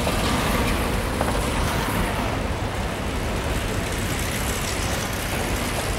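Steady, even din of an indoor cycling velodrome, with track bikes circling on the wooden boards. No single event stands out.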